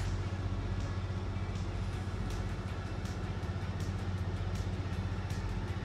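A steady low machine hum, with faint soft clicks from the camera body being handled.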